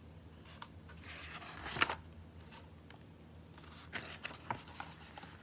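Faint rustling and light clicks of a picture book's pages being turned and handled, the loudest a little under two seconds in.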